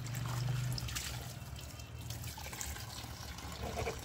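Kitchen tap running as a washed dinner plate and hands are rinsed under the stream in the sink, a little louder in the first second.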